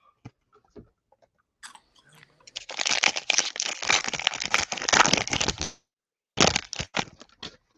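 Foil wrapper of a Panini Prizm football card pack crinkling and tearing as it is ripped open: a dense crackle lasting about three seconds from a couple of seconds in, then a few shorter crackles near the end.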